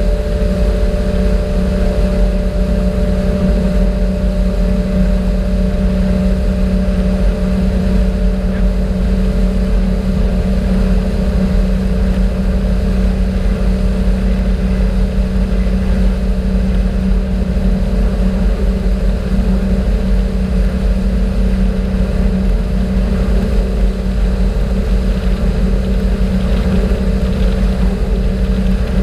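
Motorboat engine running steadily at cruising speed, a constant low drone with a steady hum, over the rushing of the wake water.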